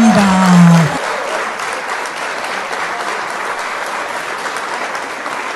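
Audience applauding steadily after a drum performance, preceded by a held, slowly falling voice that cuts off about a second in.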